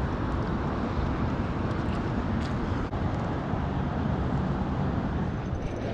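Steady rumble of road traffic, a continuous low hum with no single vehicle standing out.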